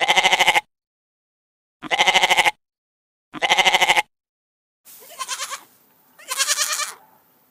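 Black-headed sheep bleating five times, short quavering bleats about a second and a half apart, the last two softer.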